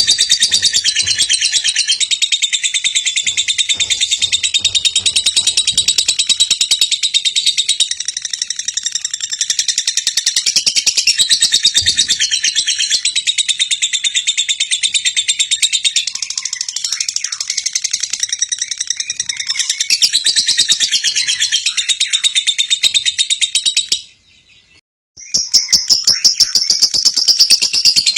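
Lovebird singing in long, unbroken high-pitched chattering trills of very rapid notes, the kind of sustained 'gacor' song used to set other lovebirds singing. The song breaks off for about a second near the end, then starts again.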